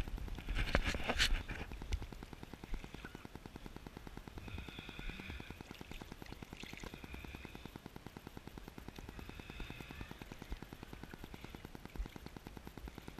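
Water splashing and lapping against an action camera held at the sea surface: a burst of louder splashes and knocks in the first second or so, then a steady patter of small rapid ticks from water slapping the camera housing.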